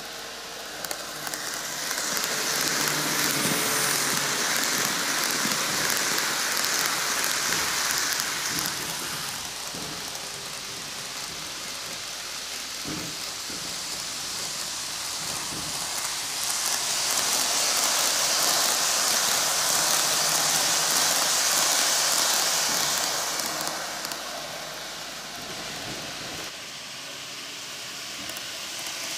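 N gauge model of a 10-car Tokyu Den-en-toshi Line train running on TOMIX superelevated track: a steady rolling rattle of wheels on rail with motor hum. It swells loud twice as the train comes around the curve, once in the first third and again past halfway, and drops back between.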